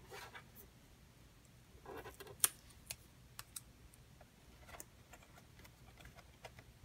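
Faint handling of paper: a small cut-out paper label rustling and being pressed onto a paper volcano model, with scattered light clicks and taps, the sharpest about two and a half seconds in.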